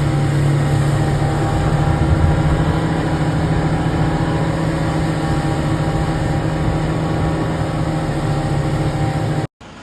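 Speedboat engine running steadily with an even low drone, cutting off suddenly near the end.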